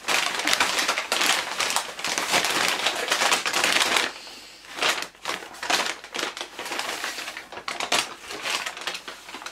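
Brown kraft paper bag crinkling and rustling as it is handled and torn open, loud and continuous for about four seconds. After a brief lull it goes on in shorter, irregular bursts of crinkling as a skein of yarn is pulled out of it.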